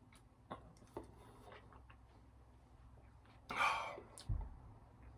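A man hiccuping once: a short, sharp breathy burst about three and a half seconds in with a brief low jolt right after, set off by the hot chilli he has just eaten. A few faint clicks come before it.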